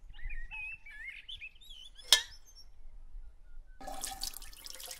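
Small birds chirping for the first couple of seconds, with one sharp click about two seconds in. Near the end, tea is poured from a raised aluminium jug, a splashing stream of liquid into the vessel below.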